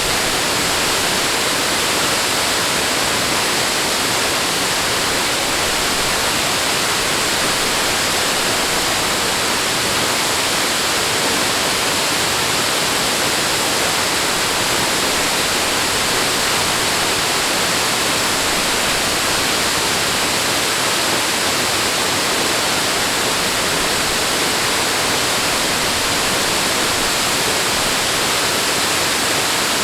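Steady rushing water, an even, unbroken rush with no swells or breaks.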